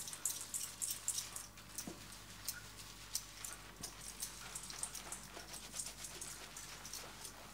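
Shampoo lather being worked into wet hair by fingers: a quiet, wet crackling and squishing of foam on the scalp, made of many small irregular ticks, with a few faint squeaks.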